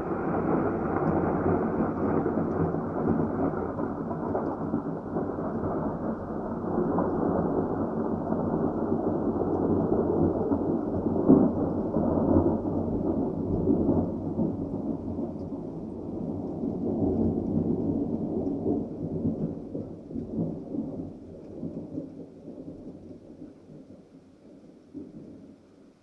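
A long roll of thunder rumbling for about twenty seconds, loudest about eleven seconds in, then dying away near the end, with rain falling beneath it.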